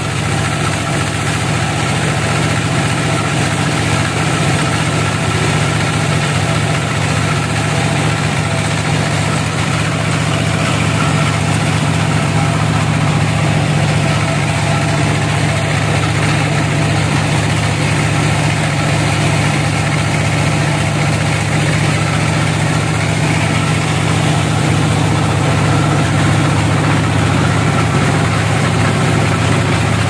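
Band sawmill running steadily, a continuous low mechanical drone from its drive and blade.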